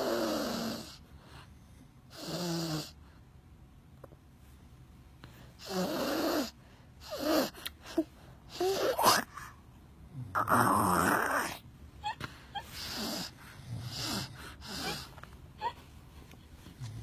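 A person snoring in a series of irregular snorts and rasps, some brief and some over a second long, with quieter gaps between them.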